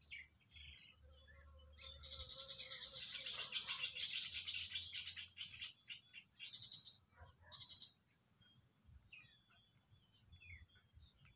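Birds chirping and calling: a loud, fast, buzzy trill starts about two seconds in and lasts a few seconds. Two shorter bursts follow, then faint short chirps.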